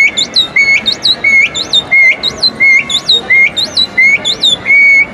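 A tit's song imitated on a palate bird-call whistle, a membrane whistle pressed to the roof of the mouth. It is a two-note phrase, a high swooping note and then a lower note, repeated about two pairs a second and ending on a longer held low note.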